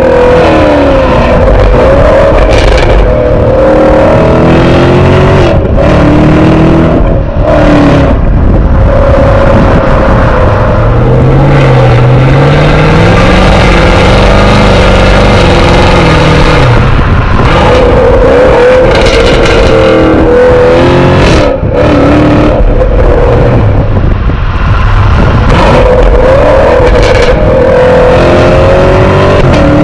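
2020 Chevrolet Camaro SS V8 exhaust heard right at the tailpipe while driving, loud and continuous. Its pitch rises and falls repeatedly as the paddle-shifted automatic is run down through the gears to first, with the revs climbing at each downshift.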